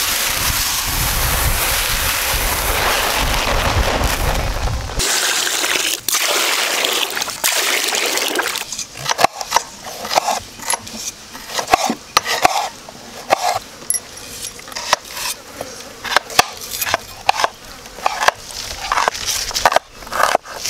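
Dry rice grains pouring in a steady rush into a plastic basin for about five seconds. Later a kitchen knife chops tomatoes and onions on a wooden cutting board in sharp, irregular knocks, about one or two a second.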